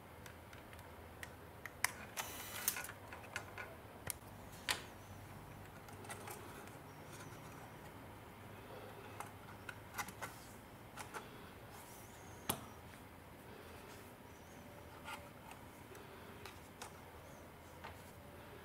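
Light plastic clicks and taps of a Canon Powershot G12 compact camera's back cover being handled and pressed into place, with a brief scrape about two seconds in.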